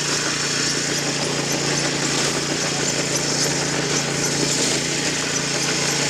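Small single-cylinder engine of a walk-behind rice binder running steadily at a constant pitch as the machine works along the rows.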